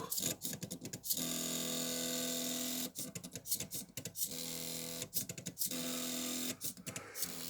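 The stepper motors of a small homemade CNC drawing machine are running a job. They give a steady pitched whine during runs of one to two seconds, broken by choppy stuttering stretches as the machine makes short moves.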